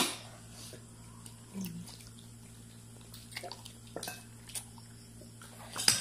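A child eating fried chicken: wet chewing, lip smacks and finger sucking, heard as scattered short clicks and smacks over a steady low hum. The loudest smacks come at the very start and just before the end.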